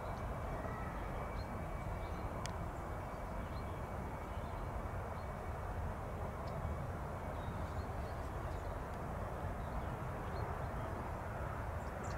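Distant jet engine rumble from a Boeing 757 moving along the runway, a steady hum with no clear pitch and no rise or fall.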